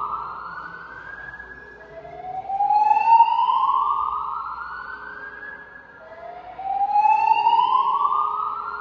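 Fire alarm voice-evacuation speakers sounding the slow-whoop evacuation tone: a tone that rises in pitch over about three seconds, then drops back and starts again, repeating about every four seconds.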